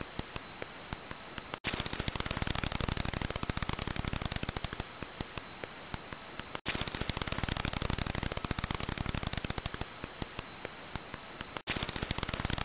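Brown long-eared bat echolocation calls, brought down into hearing range as in a bat-detector recording: a rapid train of clicks that thins into a slower series of separate clicks. The same few-second recording loops, breaking off abruptly about every five seconds.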